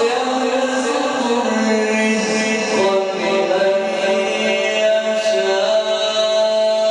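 Male Quran reciter's voice drawing out a long melodic phrase: the pitch moves through several steps, then settles about three seconds in on one note held steadily.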